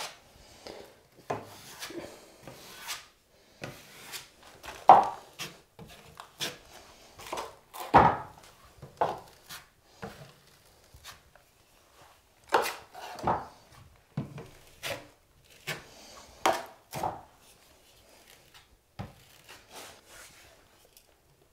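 Drywall knife scraping 30-minute setting joint compound across a wall patch and against a plastic mud pan, embedding FibaFuse tape. Irregular scraping strokes with a few sharper knocks and clacks in between.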